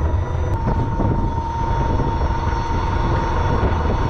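Electric shuttle cart under way: its motor gives a steady high whine that sets in about half a second in, over a continuous low rumble from the ride.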